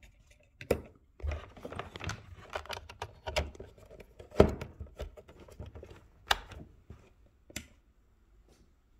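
Hands handling a plastic ECU programming interface box and its cables on a bench: a run of sharp clicks, knocks and scratchy rustling, with the loudest clicks about a second in, around four and a half seconds, and just past six seconds.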